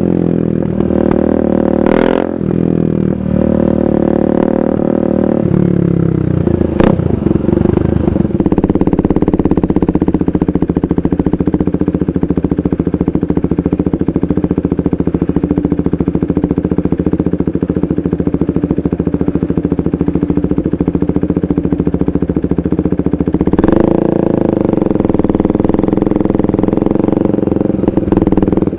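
2015 KTM 390 Duke's single-cylinder engine through an aftermarket KO Lightning exhaust, riding along. The note rises and breaks in the first two seconds, falls away about six seconds in with a sharp click, then holds steady, and steps up once a few seconds before the end.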